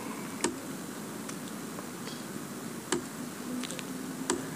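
Lecture-hall room tone: a steady hiss with a few scattered sharp clicks and a faint low hum near the end.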